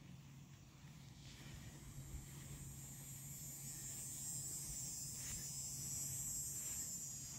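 Pickup truck engine approaching, a faint steady low hum that grows slowly louder as the truck drives in.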